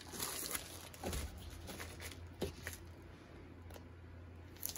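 Faint rustling as a padded mailer envelope is handled, with a few sharp clicks and snips as scissors cut into its end, the loudest near the end. A steady low hum runs underneath.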